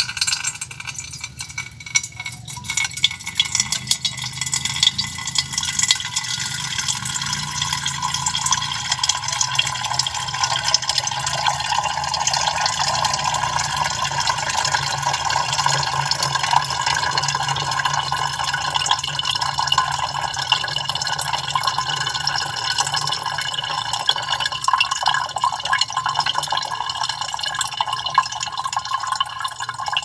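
Liquid pouring steadily from a tipped glass beaker through a glass funnel into a large glass Erlenmeyer flask, the stream splashing continuously as it fills. This is the spent solution being decanted off the settled precipitated gold powder.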